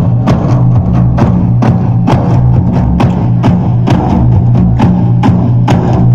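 An ensemble of large hand-held frame drums beaten together in a steady beat, about two strokes a second, over a steady low drone.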